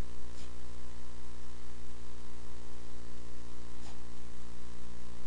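Steady electrical mains hum with a buzzy edge in the microphone and sound-system feed, with no speech over it.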